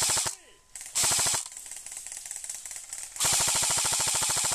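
Airsoft rifle firing full-auto bursts of rapid evenly spaced shots: a short burst at the start, another about a second in, and a long burst of nearly two seconds from about three seconds in, with fainter rapid fire between.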